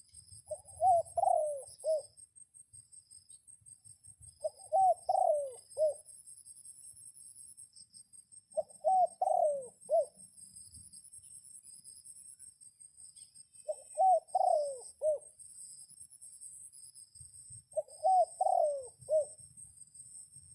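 A dove cooing: five repeated multi-note coo phrases, about one every four seconds, over a steady high insect drone.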